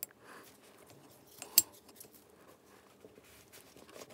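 Steel screwdriver levering down on a valve spring retainer in an aluminium motorcycle-type cylinder head, compressing the stiff valve spring to free the valve collets: quiet handling noise and one sharp metallic click about a second and a half in.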